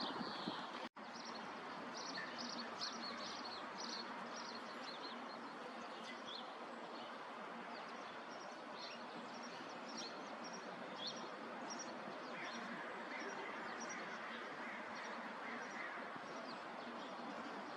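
Small songbirds chirping in quick, high runs, busiest in the first half, over a steady outdoor background rumble. The sound drops out for an instant about a second in.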